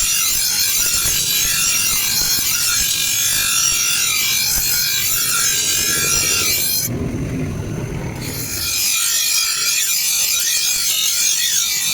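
Meat cutter's blade being sharpened: a steady, hissing grind of steel against an abrasive, which stops for about a second and a half around seven seconds in and then starts again.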